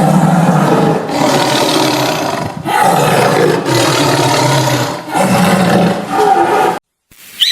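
A large animal roaring, about five loud, rough roars in a row, each a second or so long with short breaks between.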